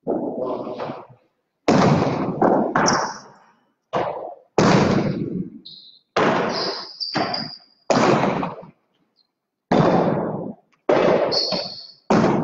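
Jai alai pelota cracking against the fronton walls and floor during a rally, about one hit a second, each ringing out in a long echo. A few short high squeaks come between the hits.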